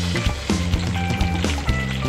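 Background music with a steady beat, over the sizzle of fish frying in oil.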